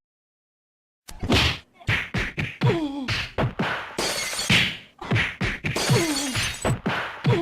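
Sound-effect clip of a rapid run of hits, smashes and breaking crashes, starting about a second in. A few short tones slide downward among the crashes.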